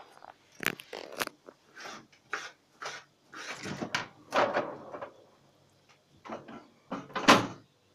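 Kitchen handling noises: irregular knocks, clicks and rustles as tomato slices are picked off a cutting board and arranged on top of a clay güveç pot. One sharper knock comes near the end.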